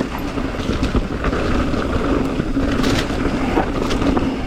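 Mountain bike ridden fast down a rocky trail: wind rushing over the microphone and tyres rumbling over rock, with sharp knocks and rattles from the bike a few times, about 1, 3 and 4 seconds in.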